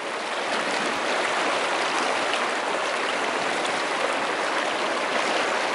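Fast-flowing river water rushing steadily, an even hiss with no breaks.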